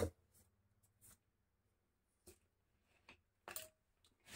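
Near silence in a small room, with a few faint ticks and one short soft clink about three and a half seconds in, as a steel spoon is set down in a small steel bowl.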